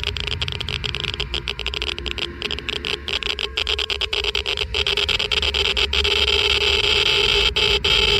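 Geiger counter crackling with dense, irregular clicks at a high count rate, getting louder toward the end, over a steady droning tone.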